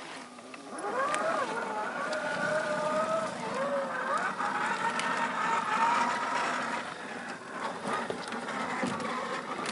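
Electric drive motor and gearbox of a 1/10-scale RC crawler whining under throttle. The pitch rises and falls as the throttle changes. It starts about a second in, with a few clicks over the whine.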